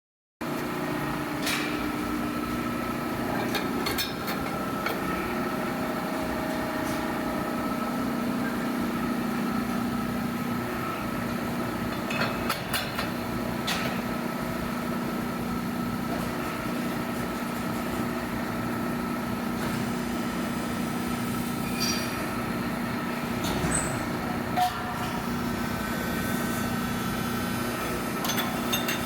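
Steady hum of running shop machinery, with a few sharp metallic clanks and knocks scattered through.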